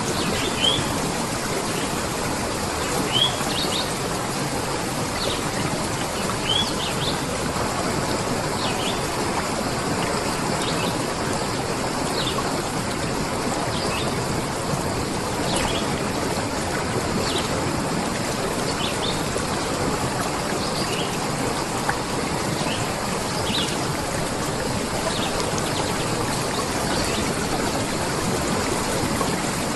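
A stream running steadily, with short, high bird chirps scattered over it every second or two.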